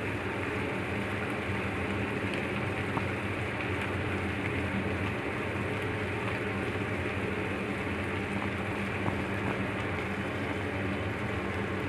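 Masala gravy boiling in a pan on a gas stove: a steady hiss of bubbling with a few faint pops.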